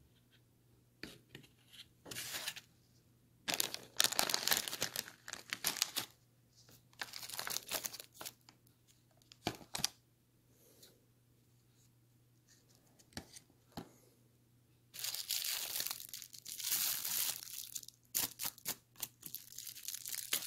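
Food wrapping being crinkled and torn open in irregular bursts, loudest in a long stretch about four seconds in and again from about fifteen to eighteen seconds.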